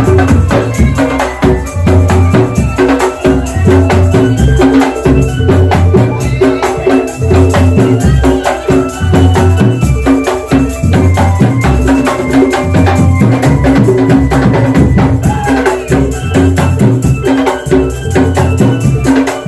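Loud drum band music: a steady, driving beat of deep drums with rattling percussion, over a stepping melody line.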